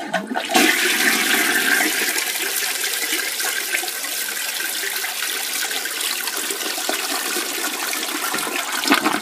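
A toilet flushing: a sudden rush of water into the bowl that carries on steadily for several seconds.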